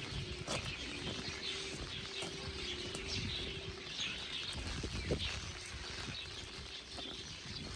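Rain falling, with scattered drops tapping, wind rumbling on the microphone, and small birds chirping.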